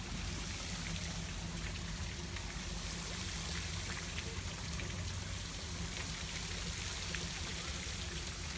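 Steady rushing of running water, with a low steady hum underneath and a few faint clicks.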